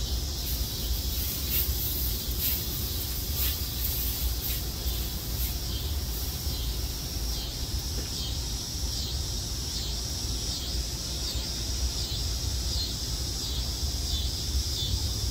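Broccoli sizzling in a hot wok over a fire as the wok is shaken, with a few sharp crackles in the first seconds and a low rumble underneath. A high rhythmic chirping, nearly two a second, runs through the second half.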